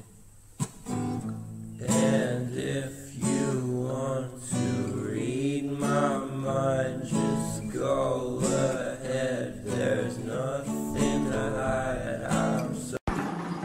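Music: strummed acoustic guitar with a singing voice, cutting off abruptly near the end.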